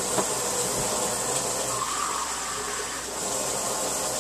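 Hot water running in a steady stream, for the 1½ cups going into a hush puppy batter.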